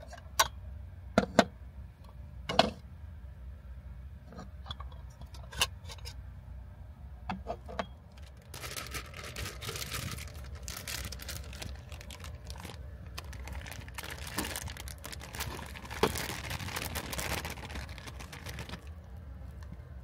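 A few sharp clacks of a lacquered bowl and a ceramic plate being set down on a tray, then, from a little under halfway in, about ten seconds of plastic bag crinkling as soba noodles are tipped out of it into the bowl.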